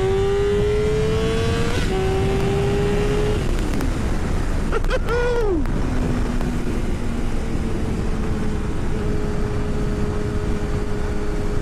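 A 2009 Yamaha YZF-R6S's inline-four engine running through a Two Brothers full exhaust. It accelerates with rising pitch, drops in pitch on an upshift about two seconds in, climbs again, then eases off and settles into a steady cruise. Wind rushes constantly underneath.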